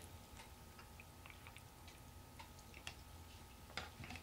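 Near silence: room tone with a few faint ticks, and a light knock near the end as a plastic cup is handled.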